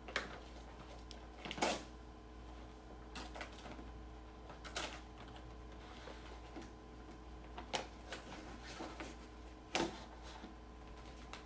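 Paper and plastic packaging of a sterile dressing kit rustling and crinkling as its paper lid is peeled back from the plastic tray, with a few sharper crackles a few seconds apart, over a faint steady hum.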